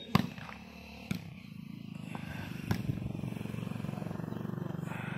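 A volleyball slapped hard by hand just after the start, with two lighter knocks about one and two and a half seconds in. A motorcycle engine runs steadily underneath, getting slightly louder.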